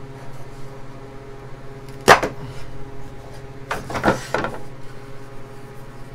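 A carved wooden sign knocking once against the CNC router's waste board about two seconds in, then scraping and knocking as it is lifted and turned over by hand, over a steady low hum.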